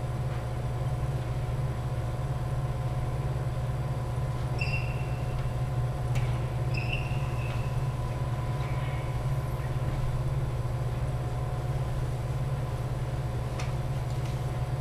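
Steady low hum with a few faint steady tones above it. Over it a badminton rally: two or three short high squeaks of court shoes on the wooden floor, and a couple of sharp clicks of a racket striking the shuttlecock.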